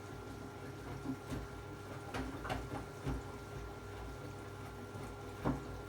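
Baxi Compakt 24 kW gas boiler running with a steady hum, broken by irregular metallic knocks and ticks. The knocks cluster about one to three seconds in, and the sharpest comes about five and a half seconds in. The owner links the knocking to the four nuts that clamp the burner to the heat exchanger being tightened too firmly.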